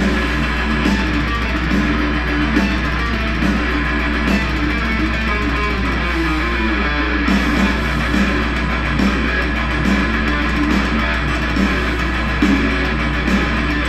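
Electric guitar playing a metal pedal-tone riff: repeated palm-muted chugs on the open low E, with the other notes almost all the root or its octave.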